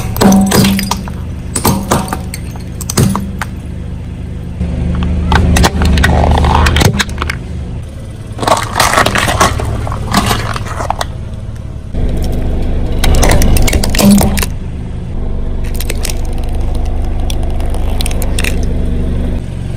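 A car tyre rolling slowly over small plastic and glass objects, crushing them in a series of sharp cracks and crunches, over the low, steady hum of the car's engine.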